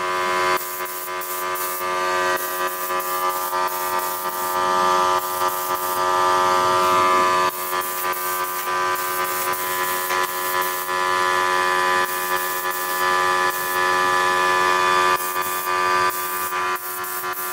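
Suction-feed spray gun hissing in repeated bursts of a few seconds as the trigger is pulled and released while spraying primer. Under it, the steady pitched drone of an air compressor running.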